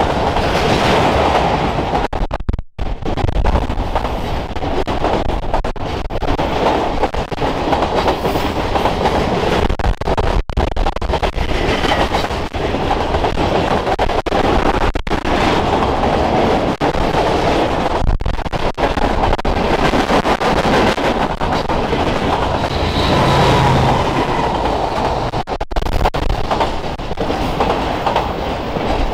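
A mixed freight train of boxcars, tank cars and autoracks rolling past: the steady, loud noise of steel wheels running over the rails as car after car goes by.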